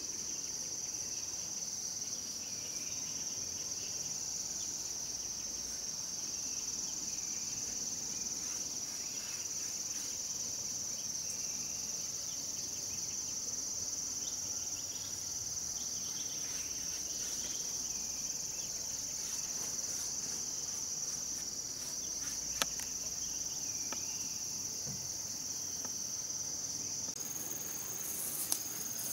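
Steady high-pitched drone of insects chirring in the surrounding forest vegetation, with a single sharp click late on. The drone's pitch steps slightly higher near the end.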